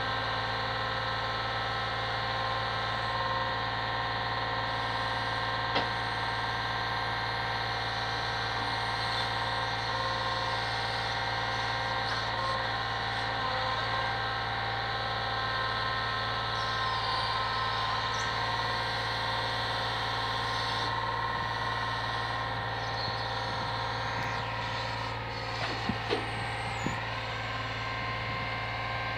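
A brick lorry's diesel engine running steadily to power its truck-mounted crane, with a steady whine from the crane's hydraulics. A few short clunks come near the end as the brick grab sets a pack of bricks down.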